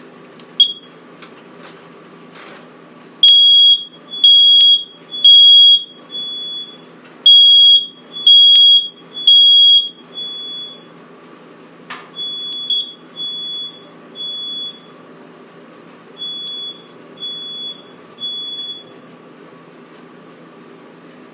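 Kidde 20SAR smoke alarm sounding its test in high-pitched beeps grouped in threes, the standard three-beep fire pattern. The first groups are loud, the later groups fainter. A few clicks come before the beeping, and there is a single knock about halfway through.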